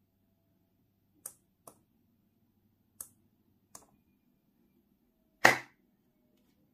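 Four small clicks in two pairs, a tactile push button being pressed and released, then about five and a half seconds in one loud, sharp hand clap that triggers a clap-switch circuit and turns its bulb on.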